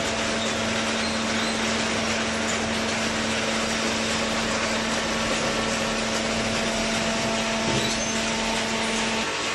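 Hydraulic waste-paper baler running: steady machine noise with a constant hum that cuts out just before the end.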